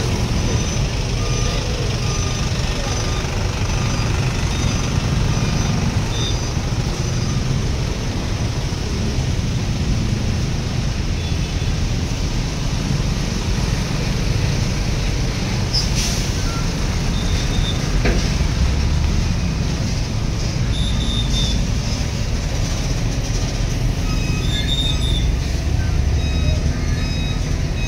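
Heavy vehicle engine running steadily with a low rumble, with the high beeps of a reversing alarm sounding on and off over it.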